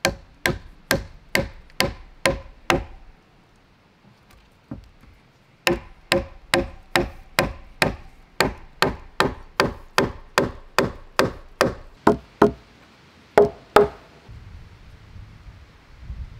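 Hammering on timber: a hand tool striking the log frame about two blows a second, each a sharp knock with a short hollow wooden ring. A run of about seven blows, a pause of about three seconds, a longer run of about eighteen, then two harder final blows.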